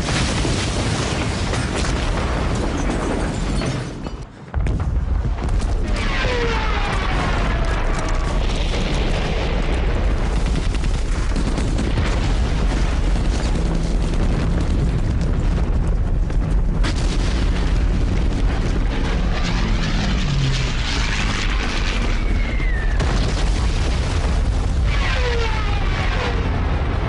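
Air-raid sound effects: a continuous heavy rumble of explosions, with descending whistles of falling bombs about six seconds in and again twice near the end.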